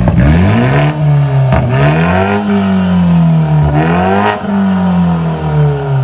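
BMW 5 Series G30's 2.0-litre turbo four-cylinder revved loud through a tuned exhaust, its vacuum valve open and the big resonator removed, so little but the catalytic converter is left in the line. The revs rise and fall, peaking twice, then sink slowly near the end.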